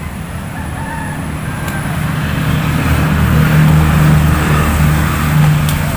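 A motor vehicle engine running and passing, a low steady drone that grows louder through the middle and eases slightly near the end.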